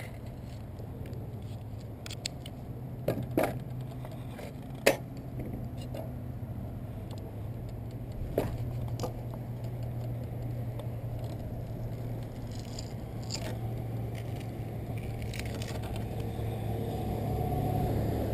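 A few sharp clicks and taps of small metal screws and hand tools being handled on a wooden bench seat, over a steady low background hum.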